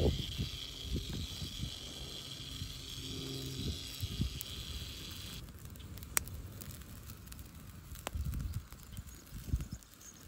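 Dry sticks knocking and scraping as they are laid over a small campfire, with a steady high-pitched background drone that cuts off suddenly about halfway. After that, a couple of single sharp pops from the burning wood.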